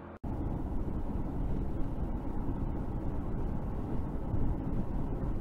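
Steady low road rumble inside a moving car, as a dashcam's microphone picks it up. The sound drops out for a moment just after the start, then runs on evenly.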